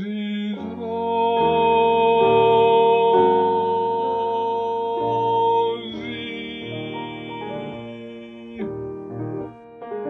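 Classical art song for voice and piano: a singer holds one long final note over the piano for about five seconds, then the piano plays the closing chords alone, more softly.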